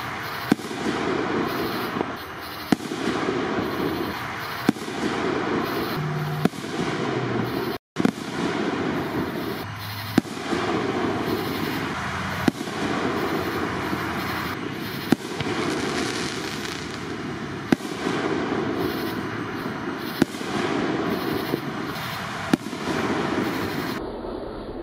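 Aerial firework shells bursting, with sharp bangs every two to three seconds over a steady noisy background. The sound cuts out for an instant about eight seconds in.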